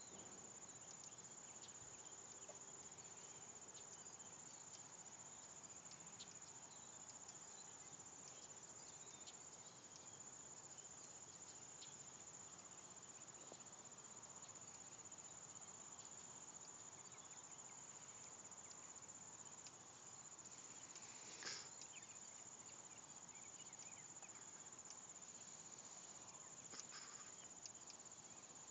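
Faint, steady high-pitched chirring of crickets in a grassy field, near silence otherwise, with a brief soft knock about three-quarters of the way through.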